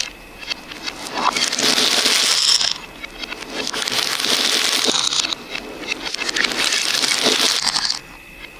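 Many small beads pouring and clattering together in three rattling bursts of about two seconds each.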